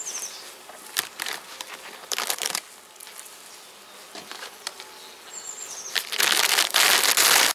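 Honeybees buzzing around an opened hive, with a loud rustling burst about two seconds in and a longer loud rustling stretch near the end, from the hive being handled.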